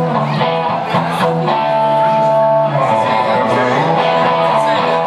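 Amplified electric guitar played live, strumming and holding chords and long notes.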